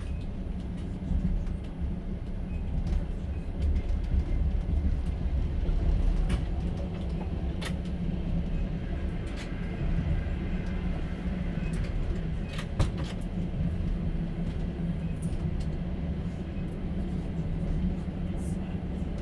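A passenger train running, heard from inside its sleeper carriage: a steady low rumble with scattered sharp clicks and knocks.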